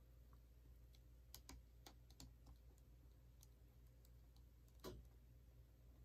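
Near silence: room tone with scattered faint light clicks and ticks, a small cluster about a second and a half in and a slightly louder one near the end.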